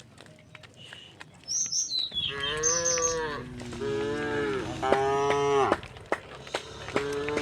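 Several cows mooing, their long calls overlapping from about two seconds in, with one more moo starting near the end. A bird chirps briefly just before the first moo, and a few sharp knocks come between the calls.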